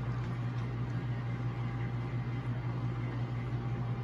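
Steady low hum with a faint hiss, unchanging throughout: background machine or electrical noise in the room.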